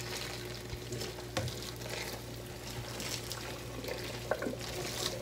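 Hot water poured from a saucepan over deep-fried tofu pieces in a plastic colander, splashing steadily and draining into a stainless steel sink.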